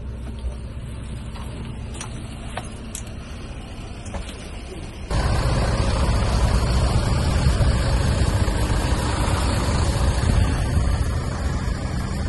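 Steady low hum of the bus's engine heard inside the cabin, with a few faint clicks. About five seconds in, this jumps suddenly to a much louder steady rumble and hiss of bus engines running in the open.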